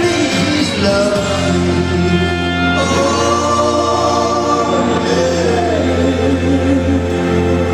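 Live stage music: singing with long held notes over a band with electric guitar and a steady bass.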